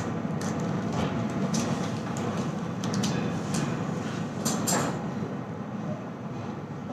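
Steady background noise, a continuous even rumble and hiss, with a few faint clicks and light knocks scattered through, a small cluster of them a little past the middle.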